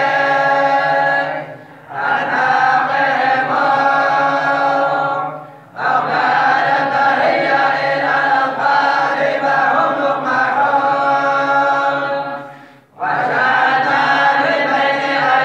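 A group of boys and men chanting in unison, collective Quran recitation, in long held phrases that break off briefly three times.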